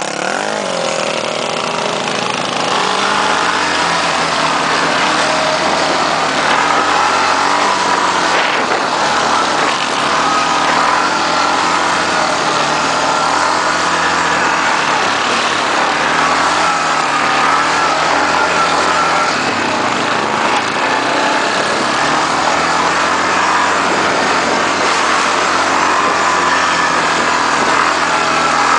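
Quad bike engine running hard on a dirt track, its pitch rising and falling again and again as the throttle is opened and eased off, over a steady rushing noise.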